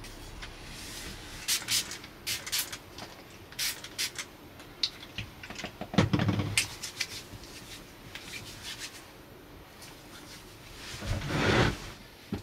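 A cloth wiping a wooden tabletop in short rubbing strokes, with a thump about six seconds in and a brief rushing noise near the end.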